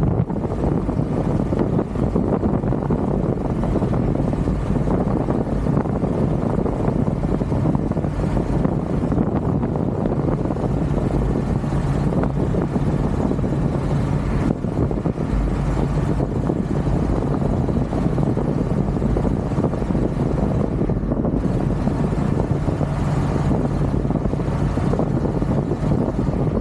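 Truck engine pulling steadily up a hill under load, mixed with wind rushing over an outside-mounted microphone. The engine is running on a dirty, clogged air filter that starves it of air and costs it power.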